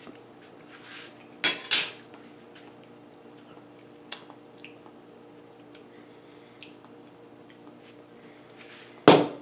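Short, sharp clatters of a metal spoon and a glass hot-sauce bottle being handled: two close together about a second and a half in, another near the end, with a few small clicks between. A faint steady hum underlies them.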